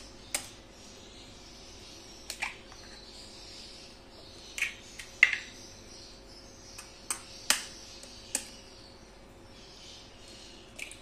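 Eggshells being tapped and cracked against a metal spoon: about a dozen sharp clicks and cracks at irregular intervals, the loudest about five seconds in. Under them is a faint sizzle of eggs frying in ghee.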